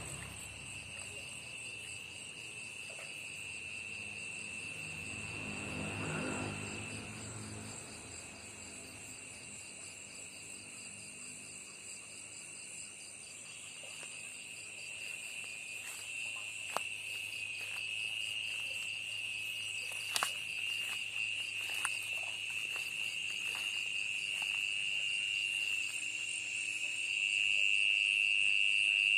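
An insect's steady, unbroken high-pitched call sounds throughout, growing louder near the end. There are a few sharp clicks in the middle and a brief low rumble early on.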